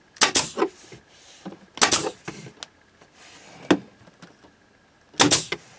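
Pneumatic staple gun firing staples through carpet: three loud, sharp shots a second and a half to three seconds apart, with a lighter click between the second and third.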